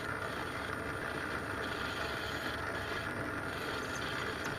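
Small hobby lathe running steadily with its chuck spinning while a boring bar takes a light pass to enlarge a bore, giving an even mechanical hum with a higher whine above it.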